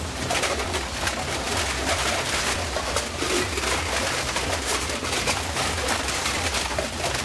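Recycling sorting-line machinery running, with a steady low hum under constant clattering and rattling of recyclables moving along the conveyor.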